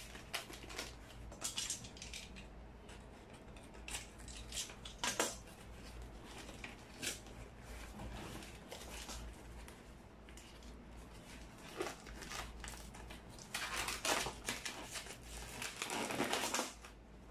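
Packing tape being peeled and torn off a cardboard box, with scattered scrapes and rustles of cardboard being handled, and a longer stretch of tearing and rustling near the end.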